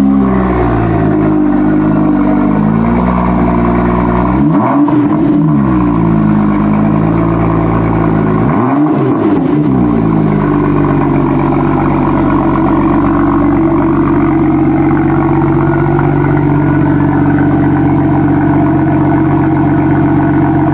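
BMW M2's turbocharged 3.0-litre straight-six running at the exhaust, revved briefly twice, about five and nine seconds in, each time rising and falling back. It then settles into a steady idle for the second half.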